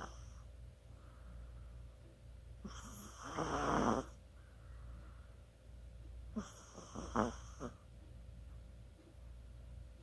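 Chihuahua snoring in its sleep: two snores about three and a half seconds apart, the first the louder.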